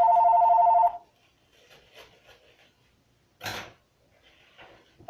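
Telephone ringing with a steady two-tone warbling ring, which stops about a second in. A short burst of rustling noise follows about three and a half seconds in.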